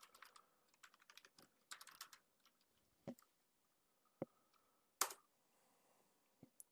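Faint computer keyboard keystrokes as a terminal command is typed and entered: a short run of key presses, then single scattered clicks with the firmest about five seconds in.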